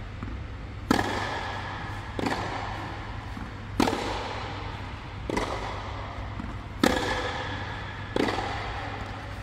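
Tennis balls struck with rackets in a rally: six hits about a second and a half apart, alternating louder and softer, each echoing in the air dome. A steady low hum runs underneath.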